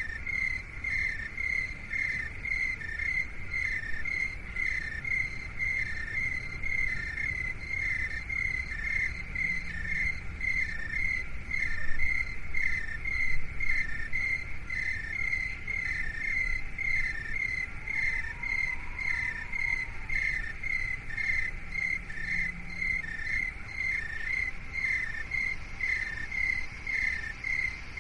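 Crickets chirping in a steady, even rhythm: a higher and a slightly lower chirp alternating, over a faint low rumble.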